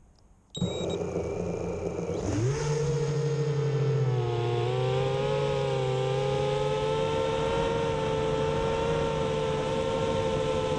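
Racing quadcopter's brushless motors and propellers starting at idle, then rising in pitch as the throttle comes up, settling into a steady, slightly wavering whine in flight, heard through the onboard camera.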